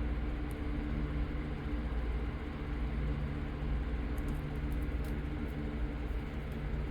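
Steady low machine hum holding a few even pitches, with a few faint light clicks over it.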